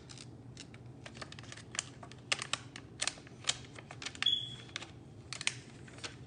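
Irregular light clicks and taps from handling a glass screen protector and its plastic backing film, with a brief high-pitched squeak a little past four seconds in.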